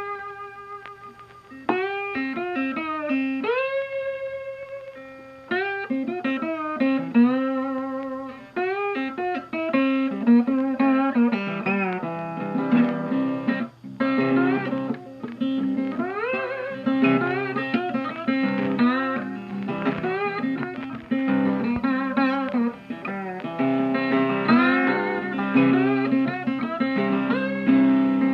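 Background guitar music in a bluesy style, a run of plucked notes that often slide up in pitch.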